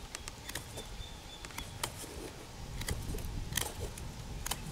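A knife whittling the end of a wooden branch to crown an improvised tent stake: irregular small scrapes and clicks as the blade shaves off wood.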